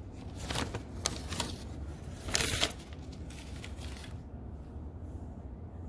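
Paper receipt being handled and folded: a few short, crisp rustles and crinkles, the longest about two seconds in, then only a low steady room hum.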